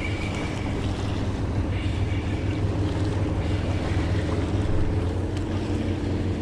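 Steady low hum of a boat motor running, with wind buffeting the microphone.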